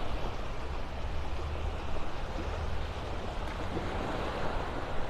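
Small Gulf surf washing onto the beach in a steady hiss, with wind rumbling low on the phone's microphone.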